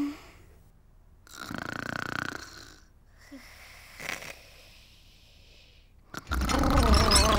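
Cartoon snoring by a sleeping woman: a snore about a second and a half in, a quieter breath out with a small squeak, then a much louder, harsher snore starting about six seconds in. It is loud enough to keep a child awake.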